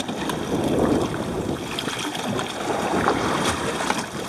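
Wind buffeting the microphone over water sloshing against a fishing boat's hull, with a few faint clicks.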